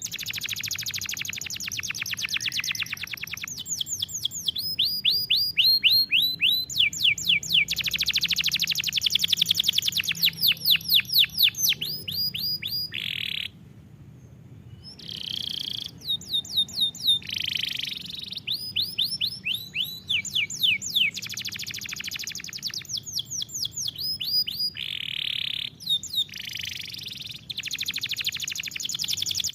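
Domestic canary singing a long song of rapid trills and fast runs of repeated falling notes, with buzzy rolls mixed in. There is a short break about halfway through before it starts again.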